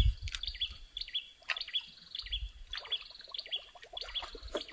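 A bird chirping: short, high notes repeated a few times a second.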